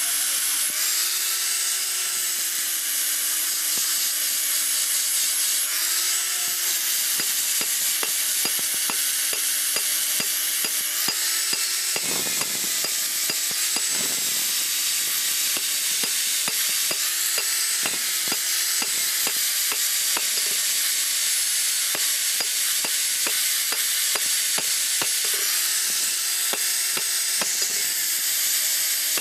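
Handheld angle grinder with an abrasive disc grinding a steel blade: a steady, loud grinding hiss over the motor's whine, which dips and recovers in pitch as the disc is pressed into the metal, with scattered small clicks.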